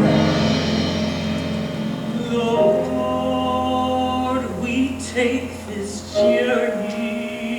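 Music: held sung notes over sustained chords, with a low bass note that stops about six seconds in.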